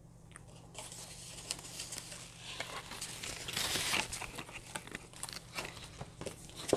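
Wig packaging crinkling and rustling as a synthetic lace wig is unpacked by hand, busiest around the middle, with a short knock near the end.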